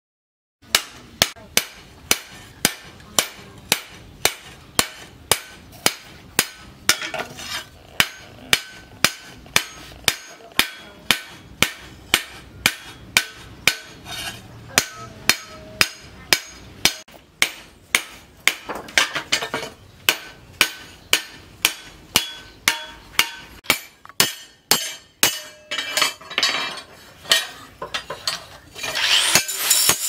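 Hand hammer striking a steel axe head, cut from a tractor plough disc, on an anvil: steady forging blows at about two a second. Near the end a hissing angle grinder comes in behind the hammering.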